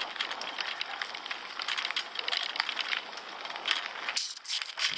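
Carrera e-bike's tyres rolling over a gravel and dirt path: a steady crunching crackle of small stones under the wheels, easing off briefly near the end.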